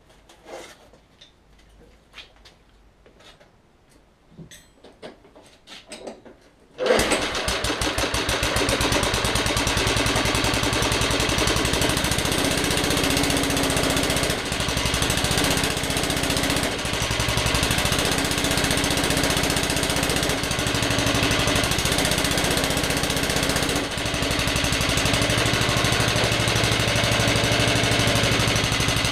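Petrol lawnmower engine of an old Suffolk Punch 43S: a few faint clicks, then about seven seconds in it starts suddenly and runs steadily. The chain-driven cutting cylinder is seized and not turning.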